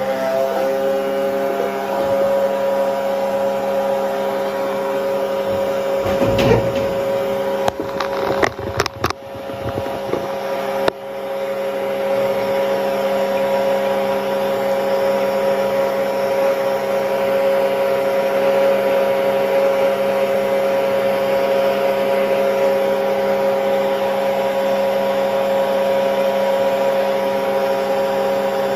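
Small electric motor of a homemade heater running with a steady hum, getting up to speed at the start. A few knocks and clicks come between about six and eleven seconds in.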